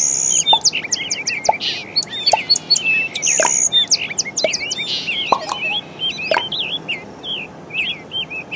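Birds chirping and calling, many short high chirps and whistles in quick, overlapping succession.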